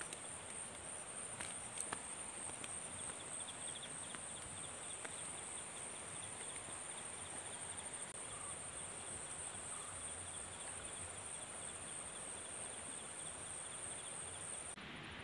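Insects chirring in a steady high drone, joined from about three seconds in by a second, faster pulsing trill a little lower in pitch; both drop in level shortly before the end. A few light ticks come in the first two seconds.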